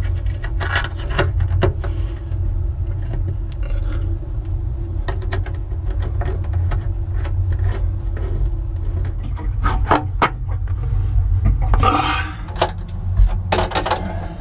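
Small metal clicks and scrapes of a washer and locking nut being fitted by hand onto a rudder-trunk bolt, over a steady low rumble. The clicks and knocks come more often about ten seconds in and near the end.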